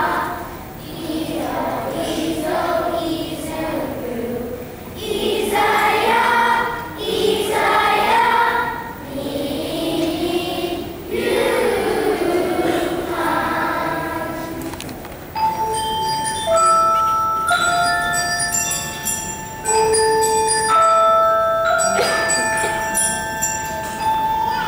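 Children's choir singing, stopping about fifteen seconds in. After that a mallet percussion instrument plays single struck notes that ring on, sometimes two at once.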